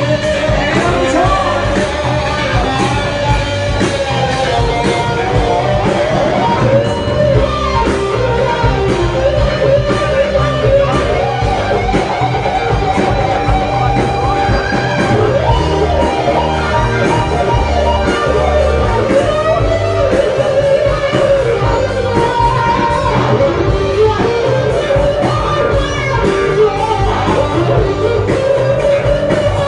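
Live rock band playing loudly: electric guitar and singing over the full band, without a break.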